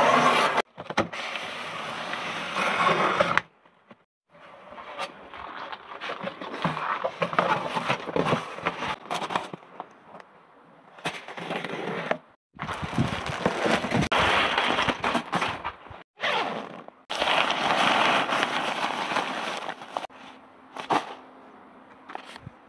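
Unboxing handling sounds: a knife slicing through packing tape on a cardboard box, with cardboard and packaging scraping and rustling. They come in stretches of a few seconds broken by abrupt cuts to silence.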